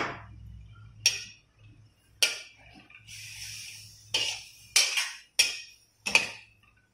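A metal spoon stirs carrots and chicken livers in a stainless steel wok. The spoon clinks sharply against the pan about six times, roughly once a second, with a short scrape along the pan about three seconds in.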